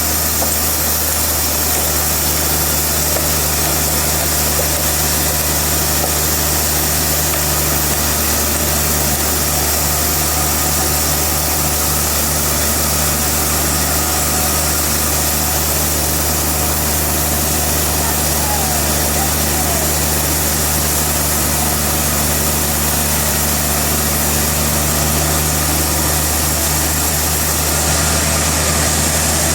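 Sawmill machinery running steadily: a constant low engine drone with a hiss over it, unchanging throughout.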